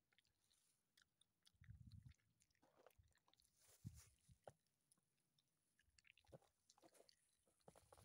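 Faint chewing and biting on raw beef heart: wet mouth clicks and smacks that come and go.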